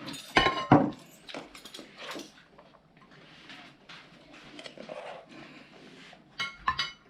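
Cutlery clinking and scraping against dishes as food is served at the table: a cluster of sharp clinks at the start, quieter scattered taps, and another few clinks near the end.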